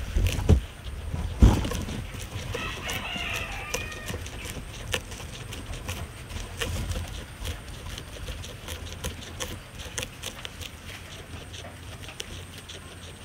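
Guinea pigs chewing fresh para grass: a steady run of small crisp crunching clicks. There are two low thumps in the first two seconds, and a brief wavering pitched call, from a bird, about three seconds in.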